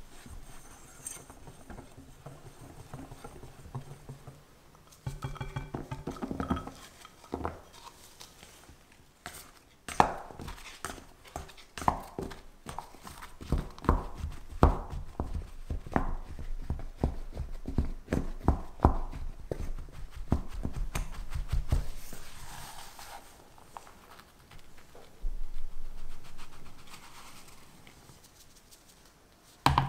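A wire whisk stirs dry flour in a glass bowl. Then a utensil cuts butter into the flour with repeated knocks against the bottom of the bowl, about two a second, and the sound turns to a softer rubbing of crumbly dough near the end.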